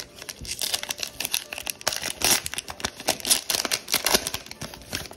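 Silver foil wrapper of a Panini Mosaic football card pack crinkling and crackling as it is torn open and the cards are pulled out.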